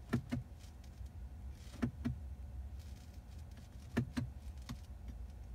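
Clicks of a BMW iDrive rotary controller being turned and pressed to move through the navigation menu: three pairs of sharp clicks about two seconds apart, over a low steady hum.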